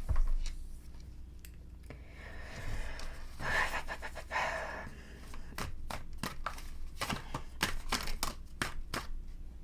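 Tarot cards being handled: a soft rustle, then a run of light clicks and taps as cards are drawn and flipped.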